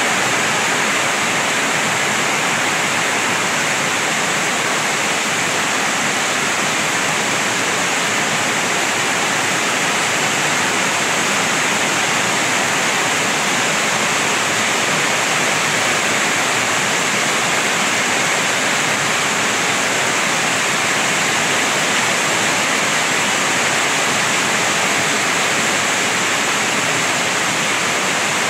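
Heavy typhoon rain pouring steadily onto concrete, puddles and the road, a dense, even hiss with no let-up.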